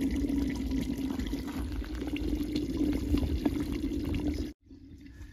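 Country-chicken curry boiling in an open clay pot, a steady bubbling with small ticks. It cuts off abruptly about four and a half seconds in, leaving only faint background noise.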